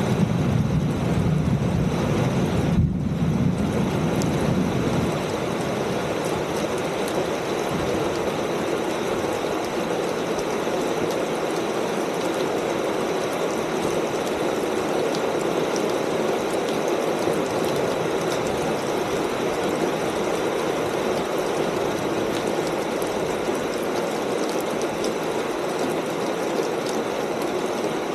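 Steady rain falling on a corrugated metal (tin) roof, an even hiss of many drops. A low rumble under it in the first few seconds fades out.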